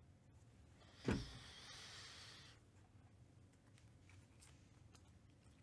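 A single sharp knock about a second in, then about a second and a half of rustling as trading cards are handled over the table, followed by a few faint ticks.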